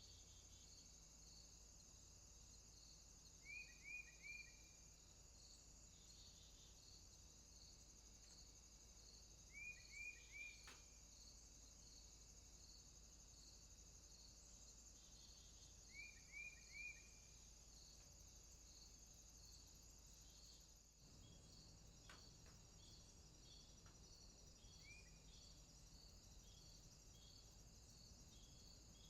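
Night rainforest insect chorus: a steady high, thin trill with a regularly pulsing insect call beneath it. Over it, a short three-note chirping call repeats three times about six seconds apart, each note falling in pitch, with one more lone chirp near the end.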